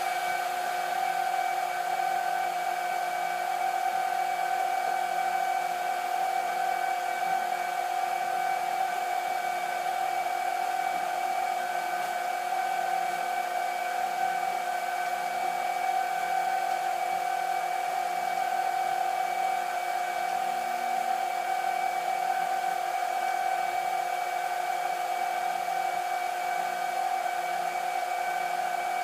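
A small electric motor running steadily, a constant whir with a high hum over even hiss.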